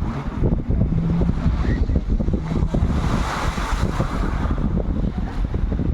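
Wind buffeting the microphone over the wash of sea water, a loud, ragged rumble with a swell of hiss about halfway through.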